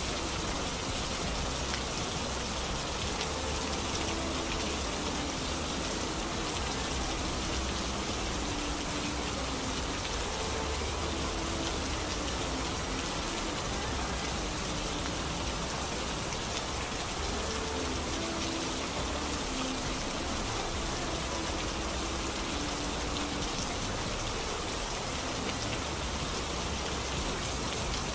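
Recorded rain sound playing steadily as an even hiss with no breaks, the usual masking track of a subliminal. Faint short low tones flicker beneath it.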